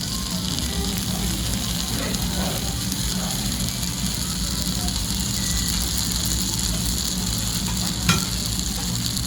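Okonomiyaki sizzling steadily on a hot iron griddle as the okonomiyaki sauce goes on, with a single sharp click about eight seconds in.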